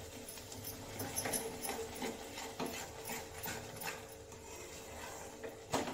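Metal spatula scraping and knocking against an aluminium kadai as a spice masala is stirred while it fries, an uneven run of strokes starting about a second in.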